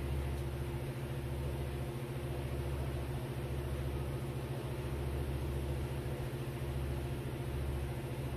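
A steady low mechanical hum, even in level, with no sharp sounds over it.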